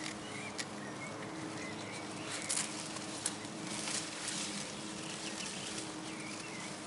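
A beagle foraging for raspberries inside a raspberry bush: the leaves rustle, with a few sharp clicks and snaps about halfway through.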